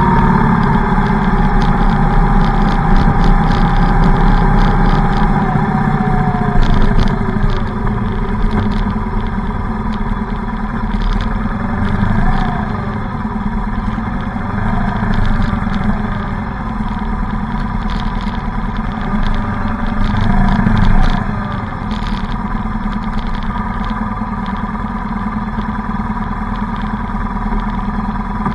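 Motorcycle engines running in a slow column of motorcycles: the recording bike's engine winds down over the first few seconds as it slows, then the engines idle and rumble together, with a few short revs rising and falling in the middle.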